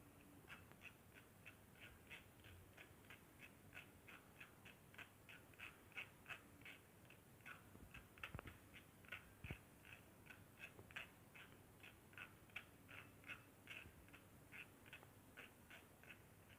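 Faint, quick scraping strokes, about three a second, as grated tomato pulp is worked through a mesh strainer to press out its juice.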